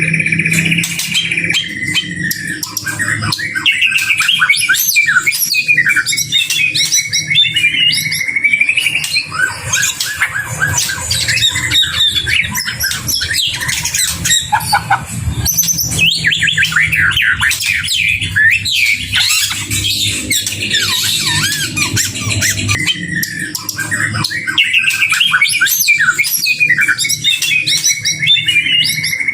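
White-rumped shama singing a long, varied song of quick rising and falling phrases that runs on without a break, over a steady low hum.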